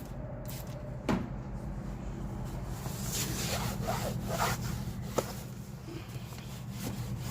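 Applicator pad rubbing protective dressing onto a surface in uneven strokes, with a couple of small clicks, over a steady low hum.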